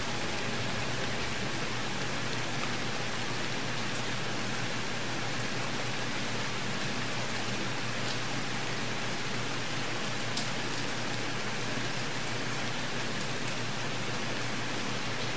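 Steady hiss of background noise, with a few faint clicks.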